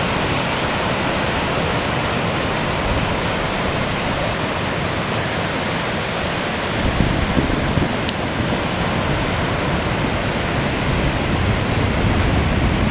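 Ocean surf breaking on a sandy beach: a steady roar of waves. From about halfway through, wind rumbles on the microphone.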